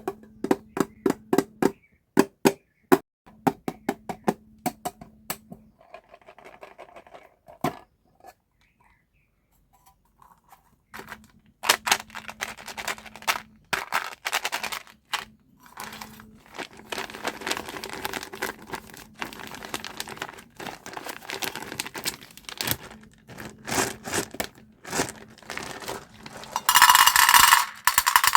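M&M's candy packaging being handled, crinkled and torn open, with a string of sharp taps at first and a brief lull. Near the end a much louder, steady rustling rush begins.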